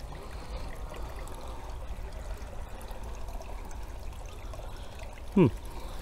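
Water trickling steadily into a concrete fish pond, an even splashing hiss.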